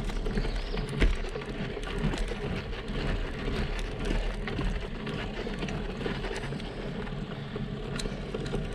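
Road bike climbing a steep street: a steady rumble of tyres rolling over rough asphalt and wind on the microphone, with scattered small crackles and clicks.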